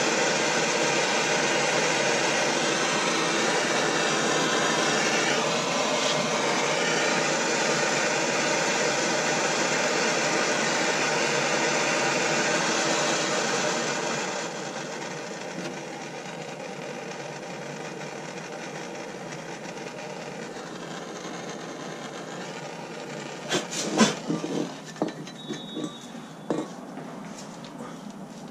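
Handheld gas torch burning with a steady hiss, heating a bolt seized in its bushing to free it. The hiss drops noticeably about halfway through. Several sharp metal knocks come near the end.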